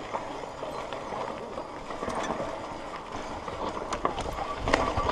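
Mountain bike rolling down a rocky dirt trail: tyres crunching over gravel and loose rock, and the bike rattling and clicking irregularly over the bumps. It gets louder, with a low rumble and harder knocks, near the end.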